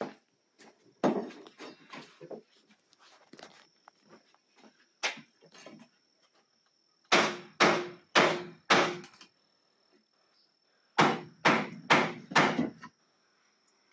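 Hammer blows on a wood block held against a wooden exterior door frame, knocking the frame loose from the wall opening without marring it. A few scattered knocks, then a run of four sharp strikes about half a second apart and, near the end, five more.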